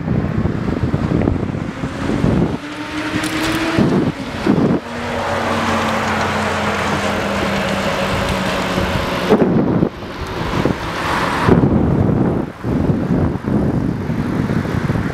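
Wind rushing over the microphone of a camera on a moving bicycle, mixed with traffic from the road alongside. A steady hum comes in for several seconds in the middle, and the sound changes abruptly a few times.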